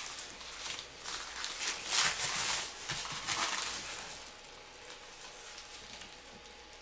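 Rustling and crinkling of a shipping package being torn open and handled, in irregular bursts that die down after about four seconds.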